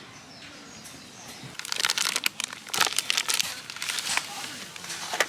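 Plastic packaging crinkled and crumpled by hand, in a dense, irregular run of crackles starting about a second and a half in.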